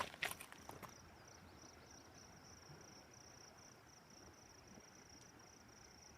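Faint insects chirping in a steady, high-pitched, pulsing trill, with a few short scuffs in the first second.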